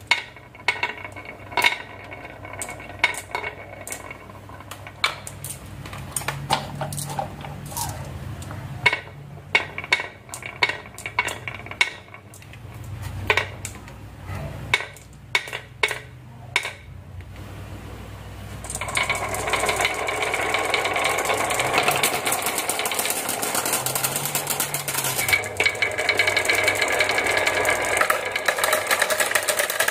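Glass marbles being set into a wooden wavy-groove marble track, each one clicking against the wood and the others. About 19 s in, the full row is let go and the marbles roll through the wavy wooden grooves in a continuous clattering rattle, spilling into a plastic toy loader bucket near the end.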